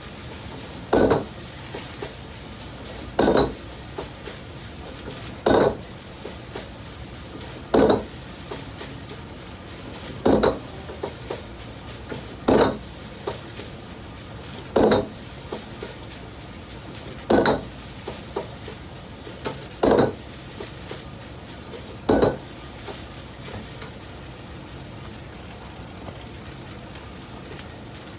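Metal wok ladle striking and scraping a steel wok as fried rice is stir-fried, a sharp clang about every two seconds, ten in all, stopping a little over 20 seconds in. A steady kitchen rush runs underneath.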